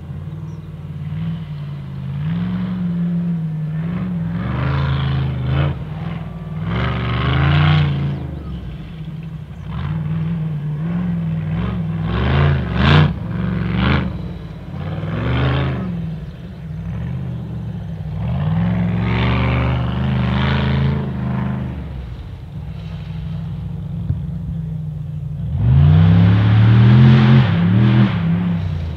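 Ultra4 off-road race car's engine revving hard and backing off again and again as it runs a dirt short course, its pitch climbing and dropping with each burst of throttle. The loudest burst comes near the end.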